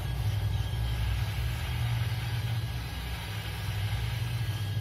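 Steady low hum, like a machine or fan running, with a faint even hiss over it.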